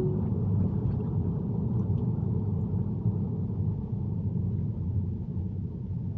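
Steady low road and tyre rumble inside a Tesla's cabin while driving, easing off slightly toward the end. The tail of a short electronic tone is heard at the very start.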